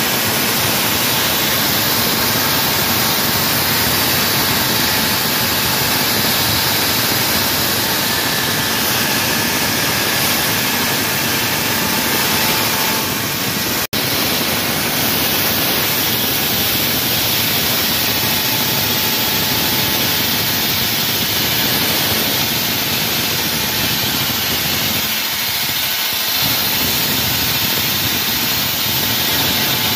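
Wall saw running, its diamond blade cutting into a wall with a loud, steady grinding noise, broken once by a momentary dropout about halfway through.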